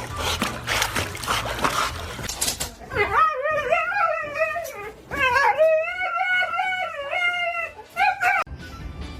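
A dog howling in long, wavering cries: two drawn-out ones and a short one near the end, after about three seconds of broad noise.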